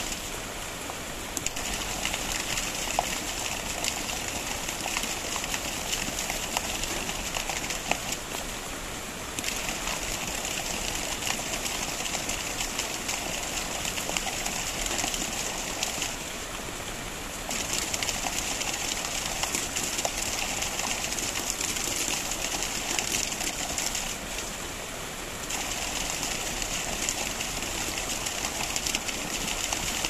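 Water from a small garden cascade splashing and rushing over boulders into a pond, a steady noise. Its higher hiss drops out for a second or so about every eight seconds.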